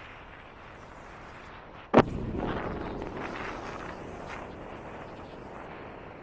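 A single loud bang about two seconds in, followed by a rough rumble that fades over the next couple of seconds.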